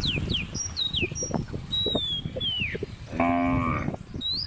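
A cow moos once, a single call of just under a second about three seconds in, with high chirping whistles in the background.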